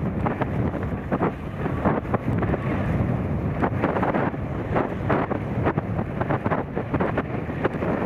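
Wind buffeting the microphone in irregular gusts over the steady low running of tractor and baler machinery.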